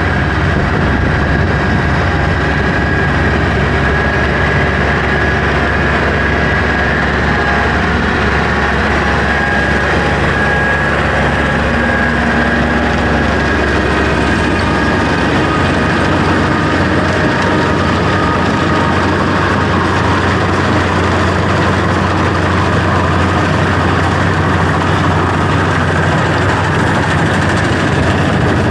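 Kubota M9000 tractor's diesel engine running steadily, a deep even drone with a constant higher whine over it.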